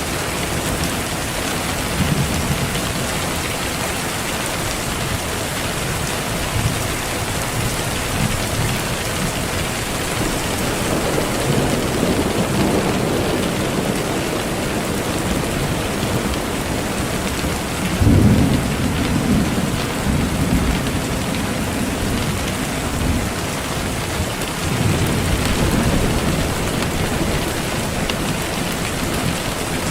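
Steady heavy rain, with low thunder rumbles rolling in several times. The strongest begins suddenly about 18 seconds in.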